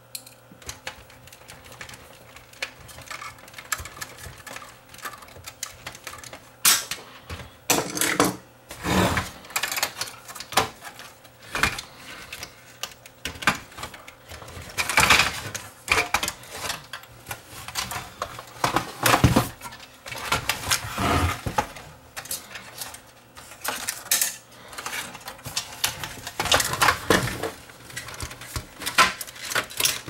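Irregular plastic and sheet-metal clicks, clacks and knocks as the Sony TC-WE435 cassette deck's front panel is handled and fitted back onto its chassis, with a few louder knocks scattered through.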